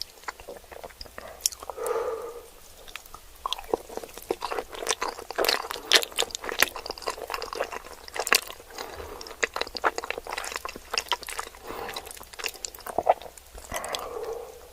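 Close-miked eating: dense, crisp crunching of Cheetos with chewing in between, the crunches thickest through the middle.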